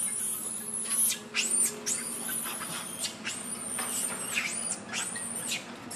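Baby long-tailed macaque screaming in distress while an adult pins it down: a run of shrill, very high-pitched screams, several held about a second and dropping off at the end, broken by shorter ones.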